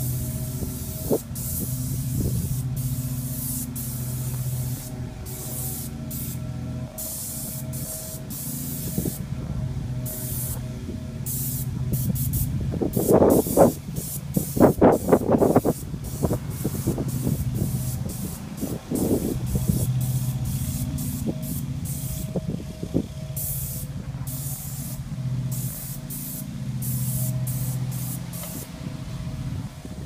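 Graco 695 airless paint sprayer at work: its electric motor and piston pump hum steadily, swelling in stretches, while the spray gun hisses in many short bursts as the trigger is pulled and released. A run of louder knocks comes about halfway through.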